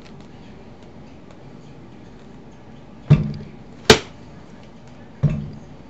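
Three sharp knocks over a steady hiss. The first comes about three seconds in and the last about five seconds in; both are heavier and carry a brief low hum that dies away. Between them comes a sharper, brighter crack.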